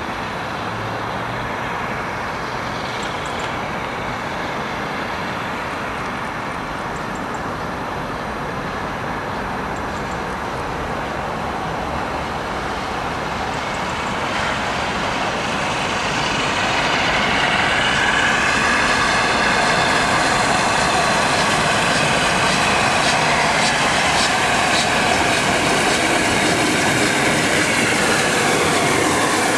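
A steam-hauled train drawing near and passing, headed by the LNER A4 60009 Union of South Africa and the A1 60163 Tornado. The noise is steady at first, then swells about halfway through and stays loud, with a layered ringing tone over it.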